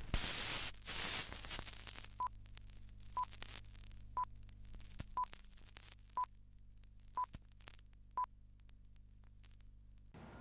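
Vintage film countdown leader sound: a burst of crackling static, then seven short high beeps one second apart, one per countdown number, over a steady low hum with scattered pops and crackle. It all cuts off near the end.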